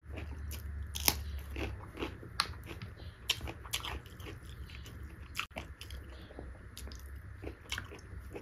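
A person chewing a mouthful of beef curry, with irregular mouth clicks and smacks, over a low steady hum.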